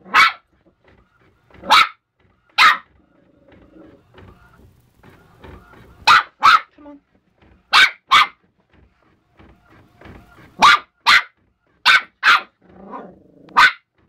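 West Highland white terrier puppy barking: about a dozen short, high yaps, many coming in quick pairs.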